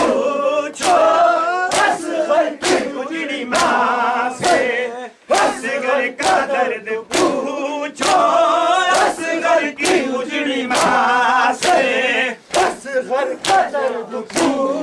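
A crowd of men chanting a Muharram lament together, with loud slaps of hands striking bare chests (matam) in a steady beat, a little under one a second.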